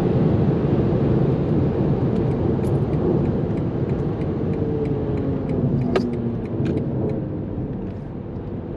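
Inside the cabin of a BMW M8 Competition slowing down from motorway speed, with the gearbox dropping from eighth to sixth gear: steady tyre and wind noise with the twin-turbo V8's note falling in pitch, fading gradually as the speed drops. A single sharp click about six seconds in.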